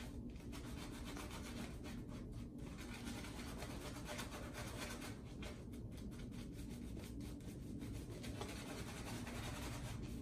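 Shaving brush scrubbing shave-soap lather over the face and stubble: a steady soft rubbing of bristles on skin. The lather is being worked up on the face without extra water and is, in the shaver's own words, maybe too thick.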